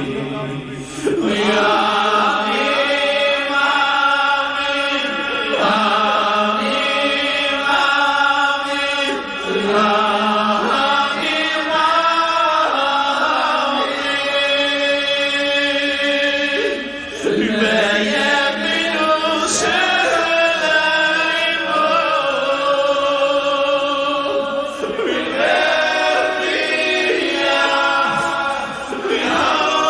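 A group of voices singing a chant-like melody together in long held notes, with short breaks between phrases.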